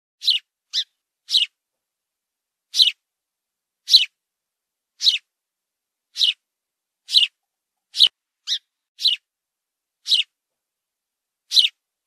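A sparrow chirping: about a dozen single short, high chirps, spaced unevenly roughly a second apart, with silence between.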